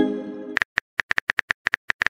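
Texting-app sound effects: a pitched chime for an incoming message, fading out over the first half second, then a quick run of about ten keyboard taps as a reply is typed.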